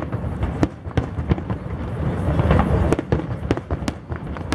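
Aerial firework shells bursting in a dense, irregular string of sharp bangs and cracks over a continuous low rumble, busiest about halfway through.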